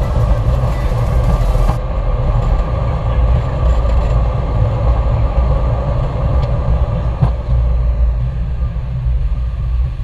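Steady loud rumble of an Airbus A321's flight deck in motion, with a high hiss over it that cuts off suddenly about two seconds in.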